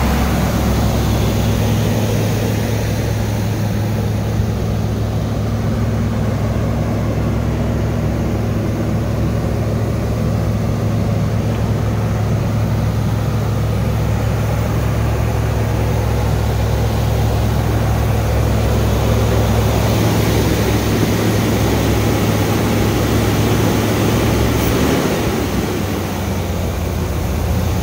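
Small-block 350 V8 of a 1979 Chevrolet Corvette running at a steady fast idle while still warming up, before the idle has settled down. Its note shifts slightly near the end.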